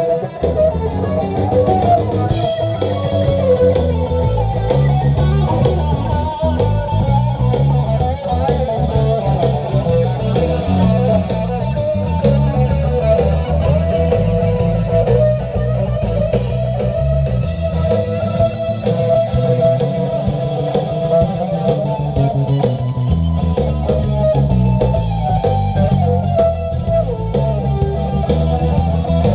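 Electric guitar played live through an amplifier in a steady instrumental, with low bass notes moving underneath.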